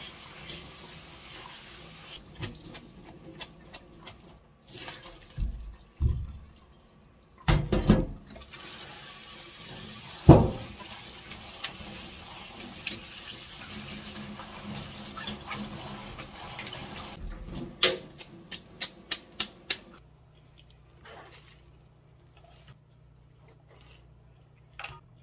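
Tap water running into a stainless-steel sink and through a mesh strainer as boiled bean sprouts and then thin wheat noodles are rinsed and rubbed by hand, with several loud knocks and clatters along the way and a quick run of sharp taps near the end of the rinsing. The water then stops, leaving only faint soft sounds of the drained sprouts being squeezed.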